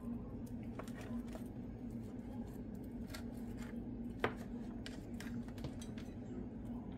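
Faint scattered clicks and taps of a spoon against a dish of baked peach cobbler, with one sharper click about four seconds in, over a steady low hum.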